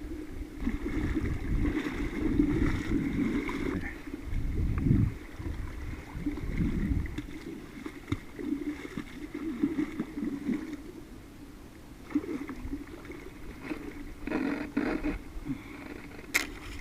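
Steady rush of river water with gusts of wind rumbling on the microphone, which ease off after about seven seconds; a sharp click near the end.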